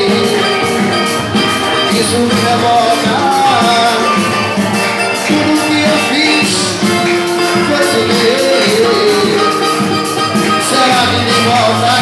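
A live band playing Brazilian-style music, with a steady percussion rhythm and a gliding melody line over it.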